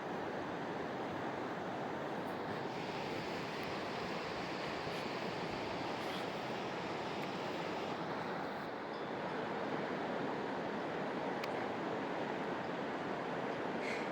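Steady rushing of flowing river water, even and unbroken, with a couple of faint clicks.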